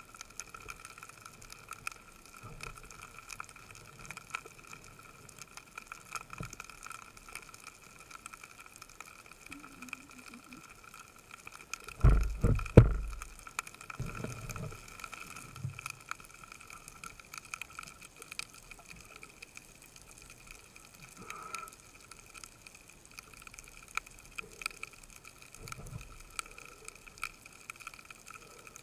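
Underwater sound picked up by a camera on a speargun: a faint steady crackle of small clicks and a thin steady whine, with a burst of several loud low thuds about twelve seconds in.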